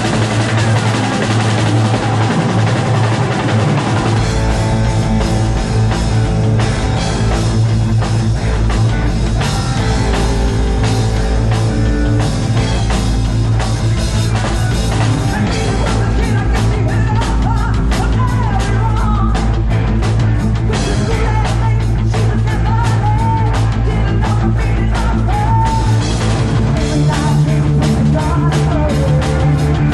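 Live heavy rock band playing a song on amplified electric guitar, bass and drum kit. The low bass and full drum beat come in about four seconds in, after which the band plays on at full volume.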